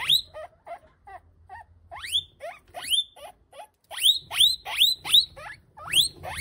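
Guinea pig shrieking in distress while held in a monitor lizard's jaws: a string of sharp rising squeals, a few a second. For about the first two seconds the squeals are fainter and lower, then they turn loud again and come quickly near the end.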